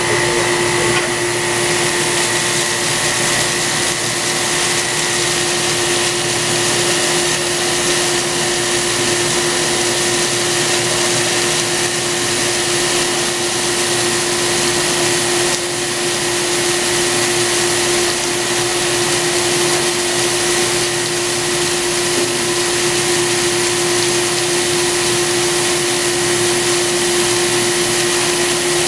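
CNC cylindrical grinder running during straight grinding of a steel shaft: a steady hiss of the spinning grinding wheel and splashing coolant, over a constant machine hum.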